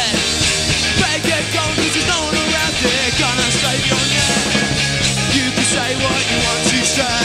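A rock band playing live: drum kit, electric guitars and bass together, loud and continuous.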